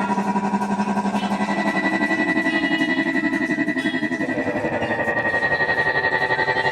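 Background music: sustained pitched tones with a fast, even pulse, the notes changing about four seconds in.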